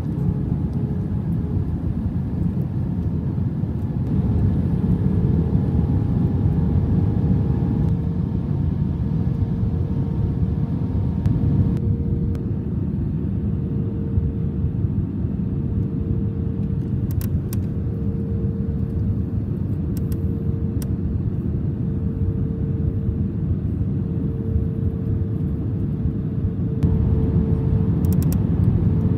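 Airliner cabin noise on the approach to landing: a steady low rumble of engines and airflow with a faint, steady engine whine on top. A few faint clicks come in the second half.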